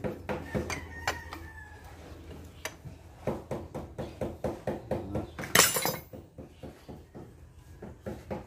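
Rapid metallic clicking, about four clicks a second, from hand tools working on a truck starter motor as it is reassembled, with one sharp metallic clatter about five and a half seconds in.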